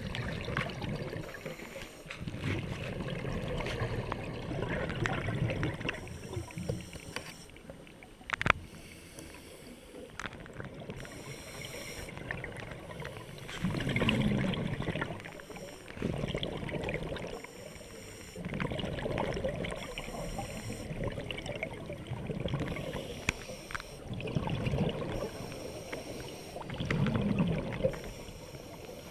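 Water sloshing and gurgling in swells every few seconds, with scattered clicks and one sharp click about eight seconds in.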